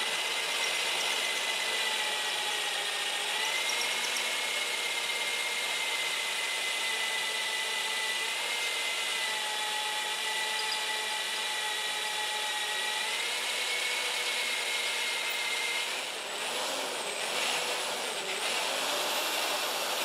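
Corded electric drill running at low speed, its motor whining steadily as the bit cuts down through a Model T Ford engine's valve guide by way of the lifter bore, to bring the guide in line. About three-quarters of the way through, the motor's pitch wavers up and down and dips briefly as the trigger is eased.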